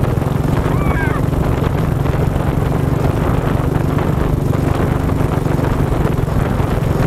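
ATV engine running steadily while the quad is ridden along a dirt trail, with rumble from the rough ground. A brief high chirp comes about a second in.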